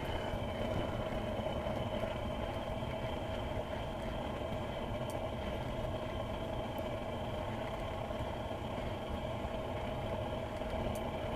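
A motor or engine running steadily: a constant hum with several held tones over a low rumble.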